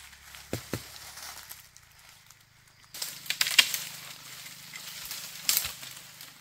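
Dry leaves and undergrowth crackling and rustling, with sharp chopping cracks of a machete striking a sapling, the loudest a little past halfway and another near the end.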